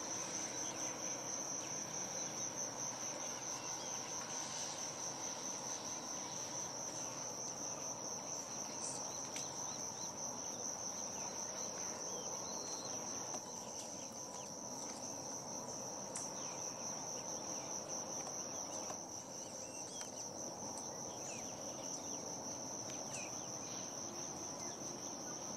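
A continuous high-pitched insect trill over a steady low background noise.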